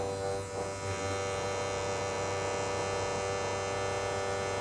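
A small electric motor, switched on through the relay module's starter channel, running with a steady buzzing hum that starts abruptly.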